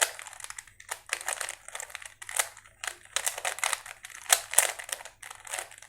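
Rubik's cube being scrambled by hand: its plastic layers are twisted in quick succession, giving an uneven run of clicking, scraping turns, several a second with brief pauses.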